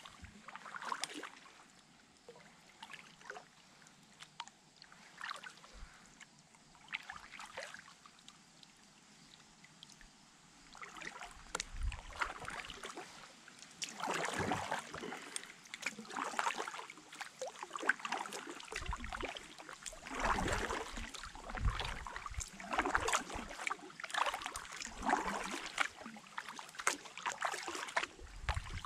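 Kayak paddle strokes: water splashing and dripping off the paddle blades in a regular rhythm, about one stroke a second. Soft for the first ten seconds or so, then louder from about eleven seconds in.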